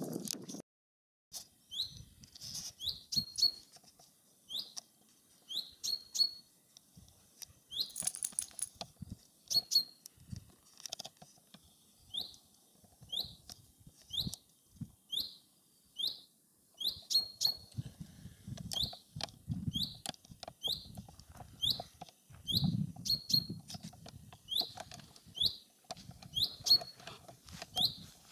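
A bird calling over and over outdoors, a short falling chirp about once a second, with occasional low rumbles underneath.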